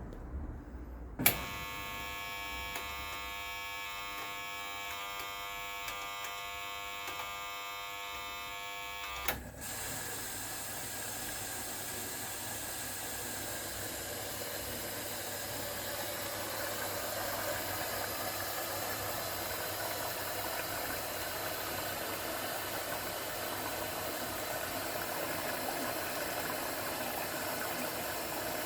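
AEG Öko-Lavamat 693 washing machine, 32 years old, working early in its wash cycle. A sharp click about a second in starts a steady whine that runs about eight seconds and ends with another click. A steady rushing noise then takes over and slowly grows louder.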